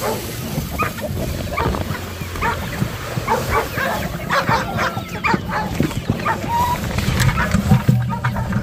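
Dogs barking repeatedly in a run of short barks.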